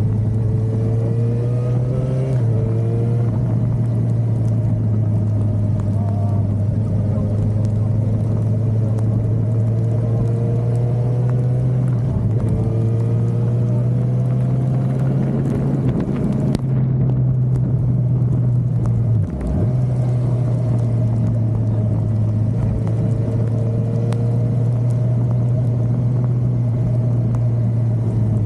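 Suzuki motorcycle engine running steadily on the road, with a loud, constant low drone and engine tones that rise and fall with the throttle. There is a brief dip in the drone about two-thirds of the way through, as on a gear change or throttle roll-off.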